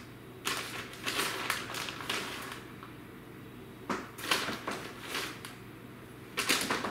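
Plastic bag of shredded cheese crinkling in several short bursts as it is shaken and handled over a plate of tacos.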